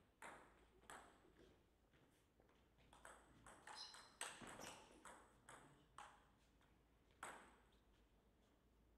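Table tennis ball clicking off the bats and the table in a rally: a quick run of sharp knocks, about three a second, in the middle, with a few single knocks before and after.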